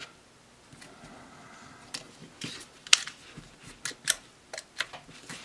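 Hammerli International .22 target pistol being handled with a snap cap in the chamber, its action worked: a series of sharp metallic clicks, about eight in all, the loudest about three seconds in.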